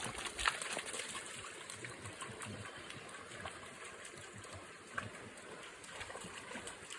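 Shallow stream water trickling, with a couple of small splashes or knocks, one about half a second in and one near five seconds.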